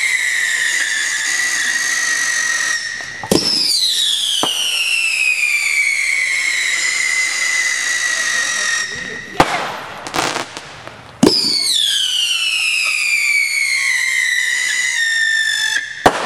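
Fireworks whistling: three long whistles, each starting with a sharp pop, sliding quickly down in pitch and then holding steady for about five seconds. Between the second and third whistle, and again near the end, come short bursts of crackling bangs.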